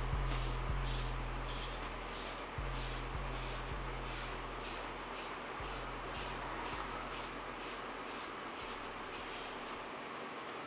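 Torino Pro wave brush swished through short, waved hair in quick repeated strokes, about two brushing strokes a second, each a short bristly hiss.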